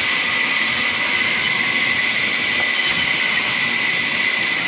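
Sawmill saw machinery running steadily: an even, loud hiss with a thin high whine over it.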